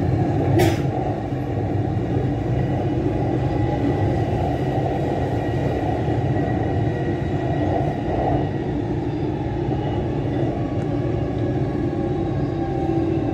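Dubai Metro train running along its track, heard from inside the car: a steady rumble, with a faint high tone for a few seconds in the first half. A single short click sounds about half a second in.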